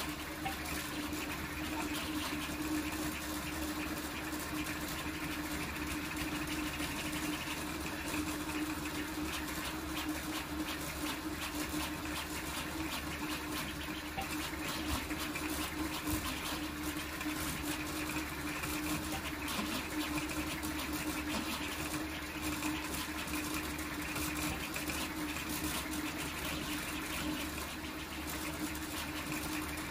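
Large toolchanger 3D printer printing at high speed (up to 300 mm/s): its stepper motors buzz and whir in rapid, constantly changing moves as the print head darts back and forth, over a steady hum.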